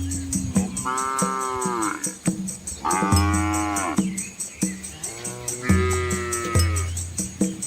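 Cattle mooing: three calls of about a second each, a couple of seconds apart, from red village cows.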